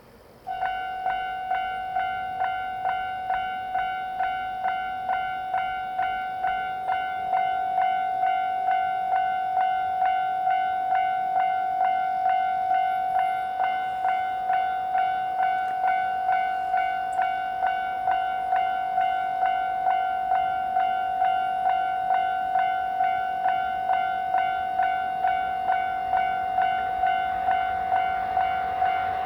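Railway level-crossing warning bell starting up about half a second in and then ringing steadily at about two strikes a second, a little louder from about seven seconds in: the signal that a train is approaching.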